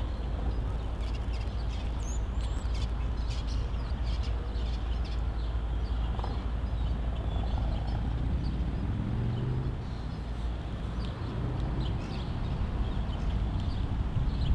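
Norfolk Southern diesel locomotives idling with a steady low rumble while the lead units move slowly up toward the parked GP38-2. Birds chirp now and then over the engine sound.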